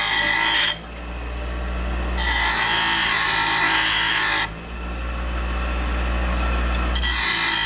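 Power grinder running, biting into the steel of a mower bellcrank in three grinding passes: one ending under a second in, one of about two seconds in the middle, one starting near the end. Between the passes the motor spins free with a steady hum.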